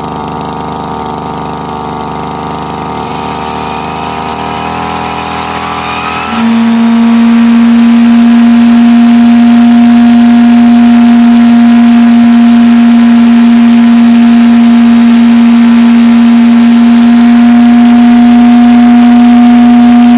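Brush cutter spinning a 40 cm blade: the engine runs and slowly climbs in revs, then about six seconds in a loud, steady hum from the spinning blade suddenly takes over and drowns out the engine.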